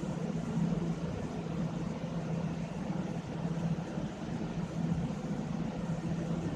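A steady low machine hum over a constant background noise, with no breaks or distinct events.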